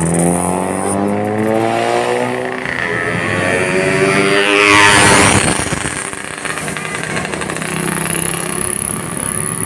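A motor vehicle's engine rises steadily in pitch as it speeds up and comes closer. It passes close by about five seconds in with a loud rush of air and tyres, then runs on more steadily as it moves away.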